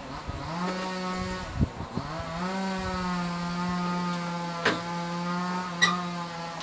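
Engine of a WPZ-500 rail-laying machine revving up, easing off briefly, then revving up again and holding a steady high pitch. Three sharp knocks come about a second and a half in, near the middle, and near the end.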